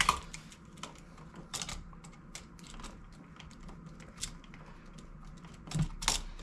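Irregular small clicks and taps of a 3-way light switch and its copper wire being handled while a wire is hooked onto a terminal screw, with a few louder knocks near the end.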